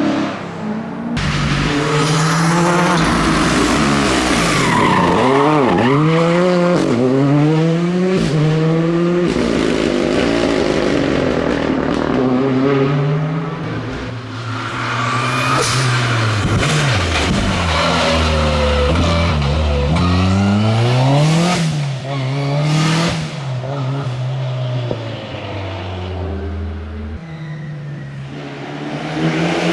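Classic rally cars running flat out on a stage one after another, engines revving high and dropping back through gear changes, each note sweeping in pitch as the car passes.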